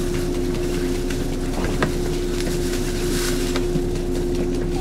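Steady electrical hum of a standing electric train's equipment, one constant pitch, with a few light knocks over it.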